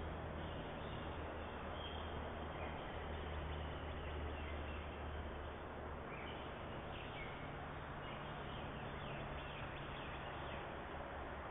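Outdoor ambience: faint bird chirps scattered over a steady background hiss and a low hum.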